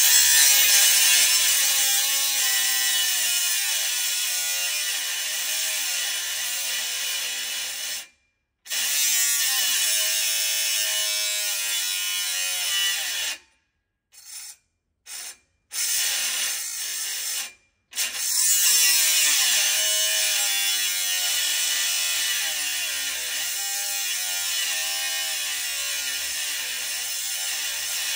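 Handheld power cutting tool running and cutting at a steel exhaust clamp, its pitch wavering under load. It stops and restarts several times, with two short blips in one pause.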